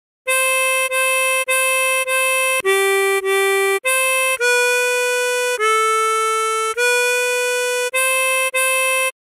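A 24-hole tremolo harmonica plays a slow single-note melody at half speed, starting after a brief silence. It goes four repeated C5 blows, two lower G4s, a C5, a long held B4, a long drawn A4 and a B4, then repeated C5s. The notes are separate, each cut off before the next.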